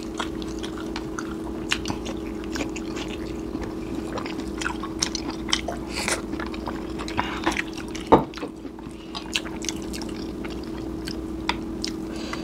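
Close-miked eating: chewing, lip smacks and small wet mouth clicks from hand-fed mouthfuls, over a steady low hum. There is one louder sound about eight seconds in.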